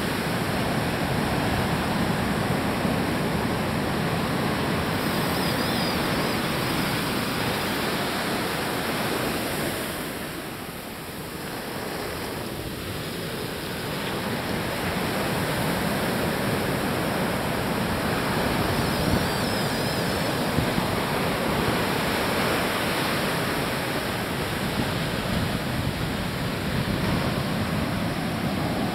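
Ocean surf breaking and washing up a sandy beach, a steady rush of noise that eases for a few seconds about ten seconds in.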